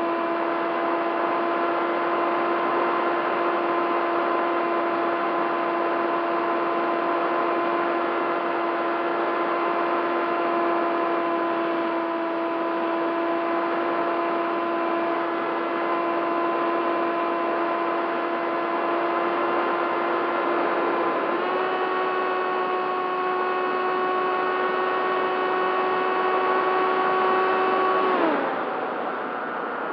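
Bixler 3 model plane's electric motor and propeller whining steadily in flight, heard from the onboard camera. The pitch steps up a little about 21 seconds in as the throttle rises, then drops away near the end as the throttle is cut back.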